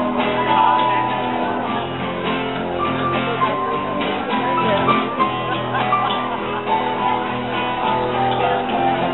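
Live band music: a melody of held notes stepping up and down over a steady accompaniment.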